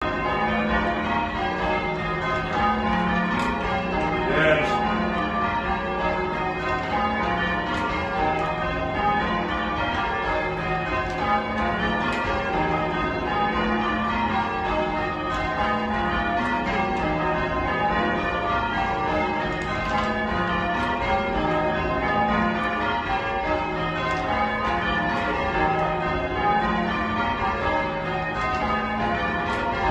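Church bells rung full circle in change ringing: a continuous stream of overlapping bell strokes in a steady, even rhythm, heard from the ringing chamber below the bells.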